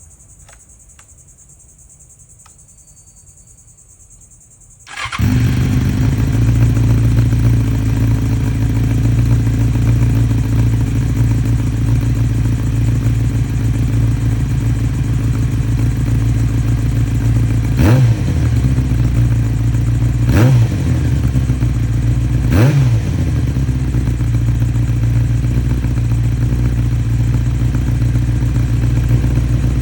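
2008 Yamaha R6's inline-four engine cold-starting about five seconds in, after a few faint clicks, then idling steadily. Past the halfway point the throttle is blipped three times, a couple of seconds apart, and each time the revs rise and fall quickly.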